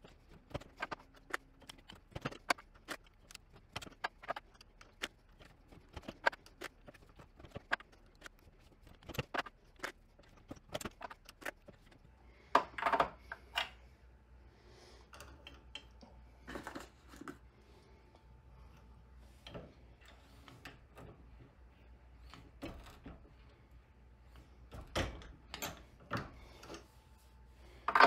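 Irregular metallic clicks and clinks of brass .308 Winchester cartridges being handled in a plastic loading block and cycled through an RCBS Rock Chucker single-stage reloading press, with a few heavier knocks from the press as bullets are seated.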